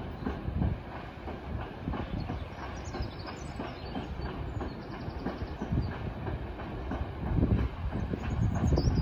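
Freight train of car-carrier wagons loaded with cars rolling past, a steady low rumble with wheels clacking over rail joints, growing louder near the end.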